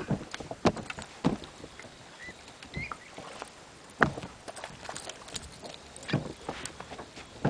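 Small waves slapping against the side of a boat in irregular knocks, the loudest about four seconds in.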